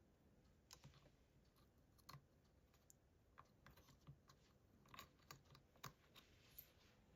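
Faint, irregular small clicks and taps of a laptop RAM module being handled and seated into its memory slot.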